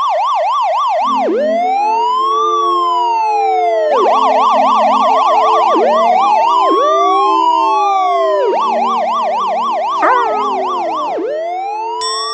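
Electronic emergency-vehicle siren that switches every couple of seconds between a slow rising-and-falling wail and a fast yelp, with steady lower notes underneath. A short falling swoop sounds about ten seconds in.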